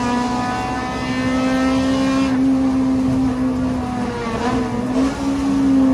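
Car engine running at fairly steady revs, its pitch sagging slightly about four to five seconds in and climbing again near the end.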